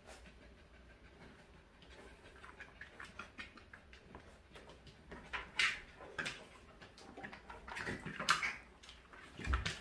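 Dogs scuffling in play: paws and claws patter, tick and scrape on a vinyl floor and cloth cushions, with brief louder rustling scuffles and a low bump near the end.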